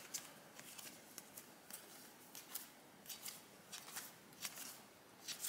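Trading cards being flipped through one at a time in the hands: faint, irregular soft clicks and slides of card edges, about one or two a second.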